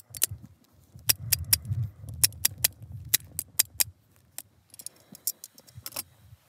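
Metal kitchen tongs clicking, a rapid irregular series of sharp clicks for about four seconds, then a few more near the end.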